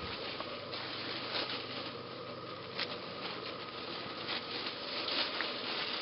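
Puppies scampering through dense leafy ground cover: a continuous light rustling and pattering of leaves, with many small crackles. A faint steady hum sits underneath.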